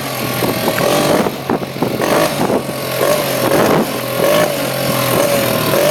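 Small motorbike engine running and being revved, its pitch rising and falling unevenly as the throttle is worked.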